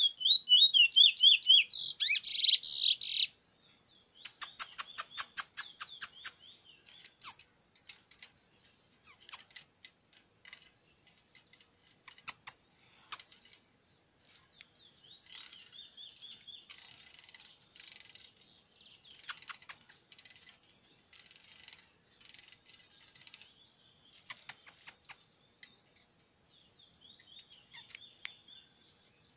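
A caged bullfinch, a Trinidad seed finch, singing: a loud warbling burst of song in the first three seconds, then softer, scattered phrases broken by runs of rapid clicks.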